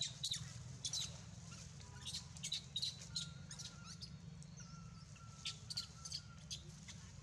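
Small birds chirping: many short, high chirps at irregular intervals, with a thin steady whistle held for about two seconds in the middle and again for about a second later on.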